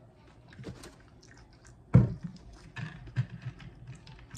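Close-miked mouth sounds of chewing a crispy fried fish ball: wet clicks and lip smacks. There is one sharp thump about two seconds in, then more frequent smacking.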